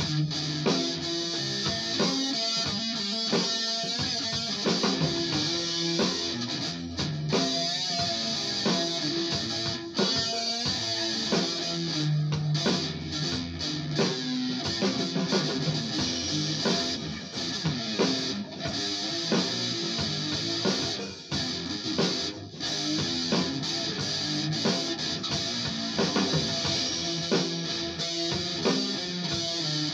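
Electric guitar being played, a continuous run of picked notes and strums, heard through a large speaker cabinet.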